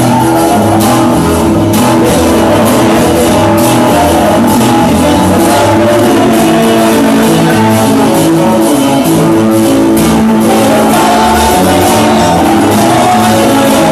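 Loud band music with guitar and a moving bass line, played without a break.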